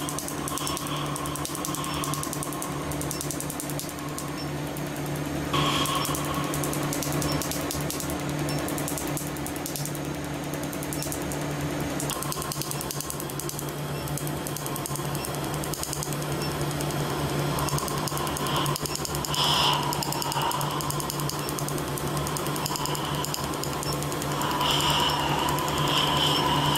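Tattoo removal laser firing a rapid run of sharp clicks as the handpiece is worked over the tattooed skin, with a steady machine hum underneath.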